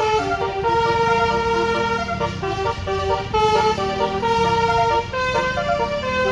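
Bus telolet (basuri) horn playing a tune: several notes sound together as held, chord-like tones that change pitch a few times a second. Under it a low whoop rises and falls about every two seconds.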